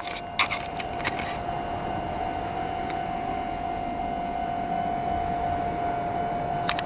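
Japanese railway level-crossing warning alarm sounding with a steady tone. A few sharp clicks come about half a second and a second in, and once more near the end.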